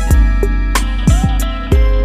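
Background music: plucked guitar over a steady beat with deep kick drums.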